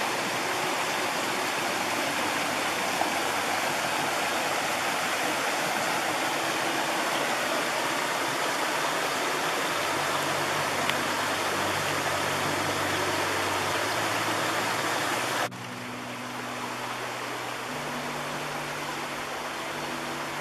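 Shallow rocky river running over stones and small rapids: a steady rush of water. About fifteen seconds in it drops abruptly to a quieter, duller rush.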